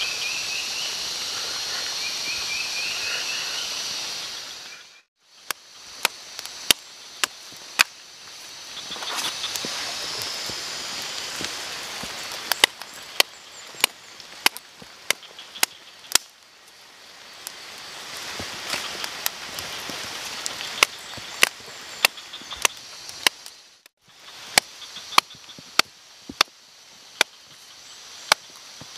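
Campfire of wet wood crackling, with sharp pops at irregular intervals, often one or two a second, over a steady hiss. For the first few seconds there is only the hiss, before the fire has caught.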